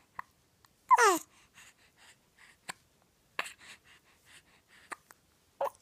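A series of short, sudden hiccups at irregular spacing, about one a second. The loudest, about a second in, has a brief squeaky voice that falls in pitch.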